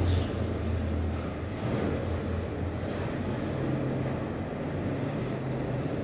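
Steady low rumble of traffic, with three short, high chirps of Eurasian tree sparrows about two and three seconds in.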